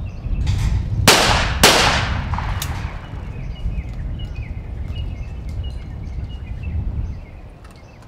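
Beretta over-and-under 12-gauge competition shotgun firing two shots in quick succession, a little over half a second apart, at a pair of skeet clay targets. Wind rumbles on the microphone throughout.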